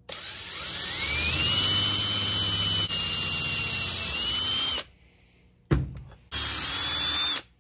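Electric drill with an 11/64-inch bit drilling the speaker mounting holes in a truck door. The whine climbs in pitch as the motor spins up and runs for nearly five seconds, stops, and after a sharp knock runs again for about a second.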